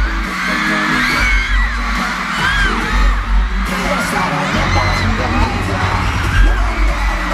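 K-pop dance track playing loud through an arena sound system, with a heavy bass beat and singing, and high screams from the audience above it.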